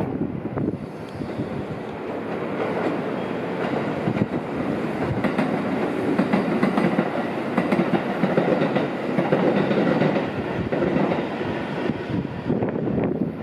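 JR Central 313 series electric multiple unit passing, its wheels clacking rhythmically over rail joints. The sound builds to its loudest around the middle and eases off near the end.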